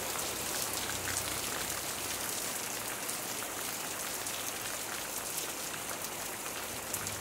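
Steady rain falling on banana plants and trees: an even hiss with scattered faint drop ticks.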